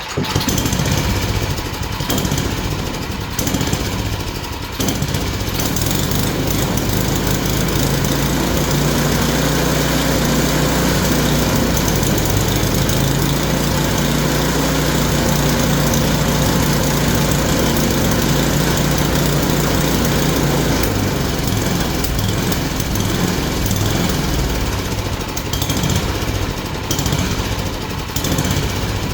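Yard Machine snowblower's small gasoline engine running after starting. It is uneven for the first few seconds, then settles into a steady run that the owner judges to be running okay.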